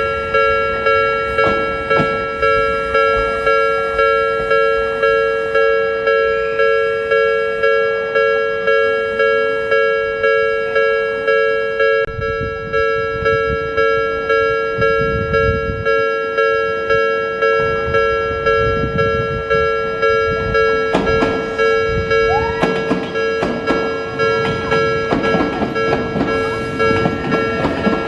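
Japanese railway level-crossing warning bell ringing in a steady repeating ding, about three strikes every two seconds. In the second half a train's wheels rumble and click over the rail joints beneath it.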